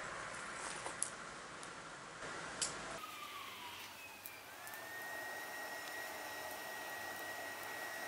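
Homemade charcoal furnace burning with a steady rushing noise and a few sharp crackles in the first three seconds. About halfway through, a whine dips in pitch, then rises and holds at one steady pitch.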